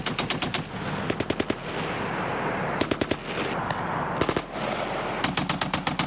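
Machine gun firing in short bursts of about three to seven rounds each, around ten rounds a second, five bursts with short pauses between them. The gunner is not holding the trigger down for long continuous fire.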